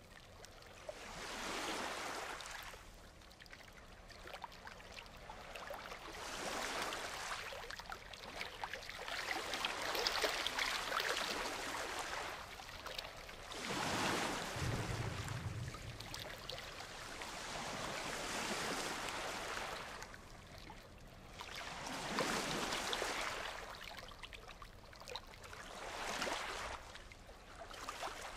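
Ocean surf: waves breaking and washing up a beach, each swell rising and falling away every four seconds or so. One surge about halfway through carries a deeper rumble.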